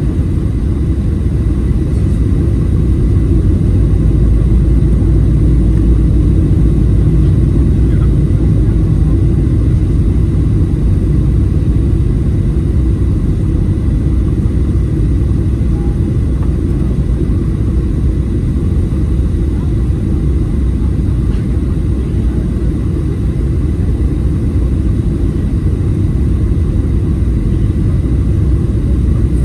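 Steady low rumble of engine and airflow noise heard inside a Boeing 737 cabin during descent, with a faint steady high whine over it.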